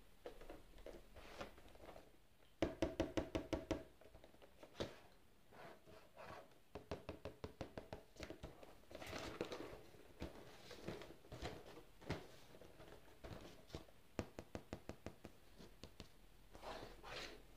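Fingers tapping in quick runs of knocks on a cardboard chocolate gift box, the loudest run about two and a half seconds in, with hands sliding over and turning the box between the runs.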